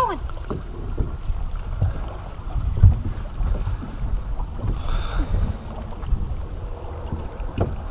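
Wind buffeting the microphone on a small fishing boat, an uneven low rumble, with water lapping against the hull.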